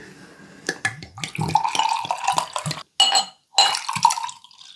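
Soju poured from a bottle into small glasses, twice, with a ringing gurgle and a few clinks of glass.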